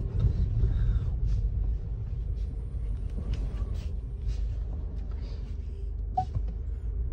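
Low steady rumble of a 2020 Ford Escape EcoBoost running, heard from inside the cabin with reverse engaged, with a few faint clicks and a short faint beep about six seconds in.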